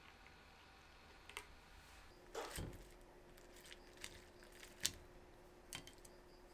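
Quiet tableware sounds: a few light clicks and taps of wooden chopsticks against a ceramic plate and a glass jar while shredded carrot salad is served, with a short handling clatter about two and a half seconds in. A faint steady hum comes in around two seconds.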